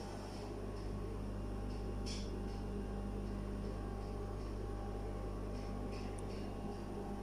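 Steady low hum of room noise, with a brief rustle about two seconds in and a few faint ticks near the end.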